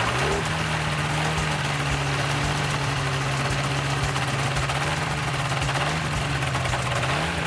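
Ultralight trike's pusher engine running at idle with its propeller turning, a steady drone. The revs rise slightly about six seconds in and again near the end.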